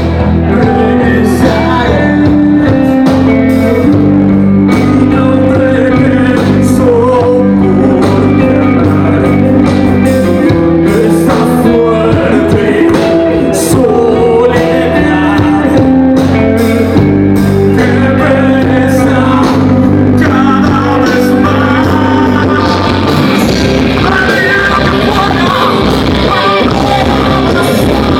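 A rock band playing live through a PA in a large hall: amplified guitars and bass hold sustained chords under a melody line, with singing. About 23 seconds in the sound grows denser and brighter as more cymbal wash comes in.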